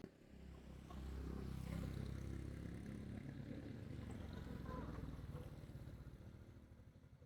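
Small motorcycle engine running steadily, fading away over the last couple of seconds.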